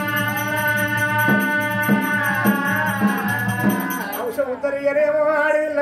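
Folk music interlude of an oggu katha performance: low drum beats about every half second over a fast metallic jingling rattle and held melodic tones. The instruments stop about four seconds in and a voice takes over.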